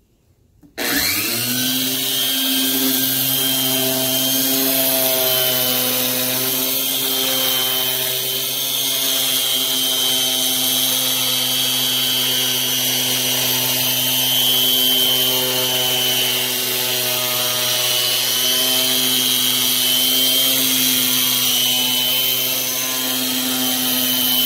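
Small corded electric polisher with a 1000-grit sanding pad, switched on about a second in and running steadily as it sands the polycarbonate headlight lens. It makes a steady motor hum with a high whine over it.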